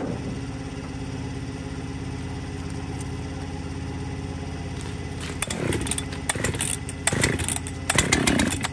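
A chainsaw's recoil starter pulled about four times in the last few seconds, cranking the engine over to check for spark. A steady engine hum runs underneath throughout.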